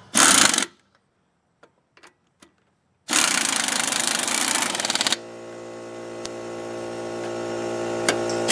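Pneumatic impact wrench hammering a wheel's lug nuts tight: a short burst, a pause of about two seconds, then a steady two-second run. After that a steady hum with several even tones sets in and slowly grows louder.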